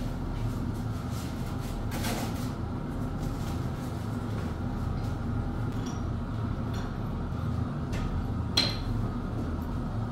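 Scattered taps and clinks of bricklaying work, trowel and bricks being handled, with one sharp clink near the end, over a steady low hum.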